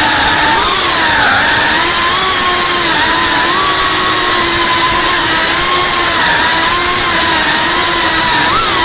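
Small FPV quadcopter drone's electric motors and propellers buzzing at a high pitch, the pitch wavering up and down with the throttle, with a dip about a second in and a quick rise near the end.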